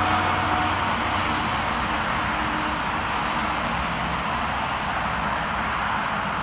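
Boeing 737-800 twin jet engines (CFM56-7B) at takeoff thrust on the takeoff roll: a loud, steady jet roar that slowly fades as the aircraft accelerates away down the runway.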